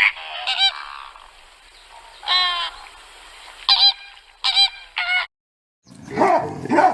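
A large bird honking like a goose, about six short pitched calls spaced irregularly. After a brief gap near the end, a deep animal roar begins.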